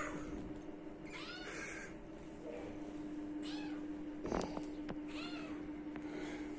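Kitten mewing: several short, high-pitched mews a second or two apart.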